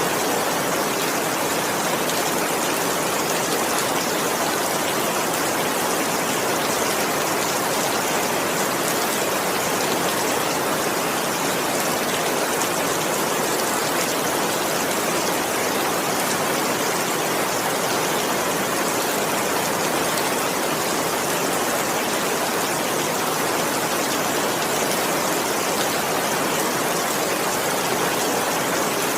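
Heavy rain falling in a steady, even hiss with no thunder.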